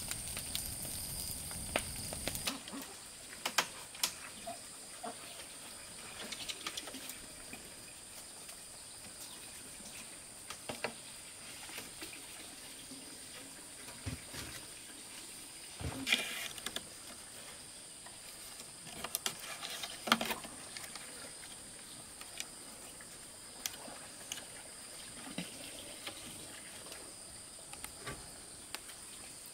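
Dry palm leaves crackling in a fire for about two seconds, then scattered knocks and taps of bamboo poles being handled on a lashed bamboo frame, the loudest about halfway through and again a few seconds later. A steady high-pitched hum runs underneath throughout.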